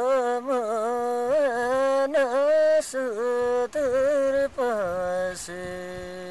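A man singing a Nepali folk song solo, unaccompanied, with many quick bends and turns in the melody, settling onto a long held note near the end.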